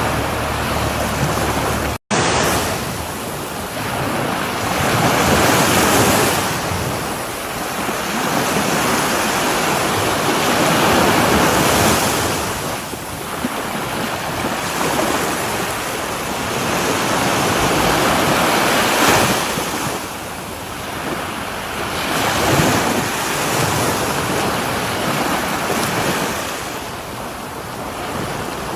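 Ocean waves breaking on a shore, a continuous surf wash that swells and recedes every few seconds. About two seconds in, the sound drops out for a split second, an edit cut in the recording.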